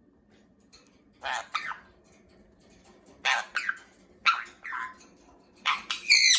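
Pet parrot shouting: four loud, harsh squawks a second or so apart. These are alarm-type calls, made when the parrot hears voices outside, as its owner explains.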